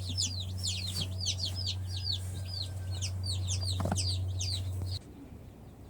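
A brooder full of day-old chicks (a mixed batch of ISA Brown, Plymouth Rock and Rhode Island Red) peeping constantly. The many overlapping high peeps each fall in pitch. A steady low hum runs underneath, and both cut off suddenly about five seconds in.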